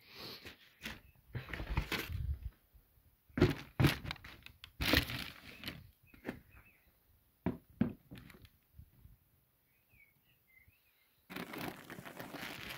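Handling noise from a pair of trainers being moved and set down on a cardboard shoebox: groups of dull knocks and rustles, a quiet spell after the middle, then steadier rustling near the end.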